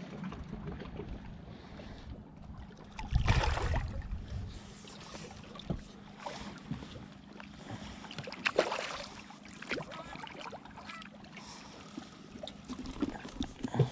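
Handling noises aboard a small fishing boat: a steady low hum under scattered knocks and rustles, with two louder bursts of noise, about three seconds in and past the middle.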